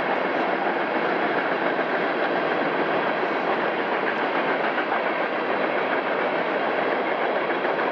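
Empty coal train hopper cars rolling past, a steady, even rush of wheel-on-rail noise.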